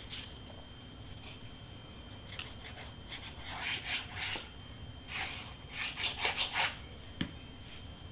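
Cardstock pieces being handled and rubbed down: two stretches of paper rustling and rubbing, the first about three seconds in and the second a second or so later, followed by a light tap near the end.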